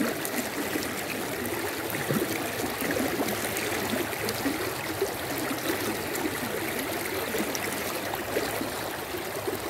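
Steady rushing of river water flowing around a person wading in it, with small scattered splashes and ticks as the cast net is handled.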